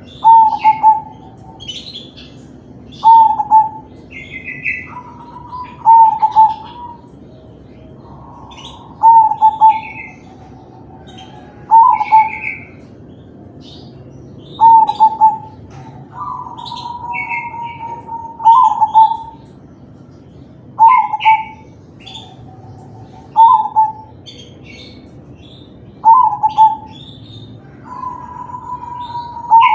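Crossbred perkutut (zebra dove) cooing its song, the same short phrase repeated about every three seconds, about ten times.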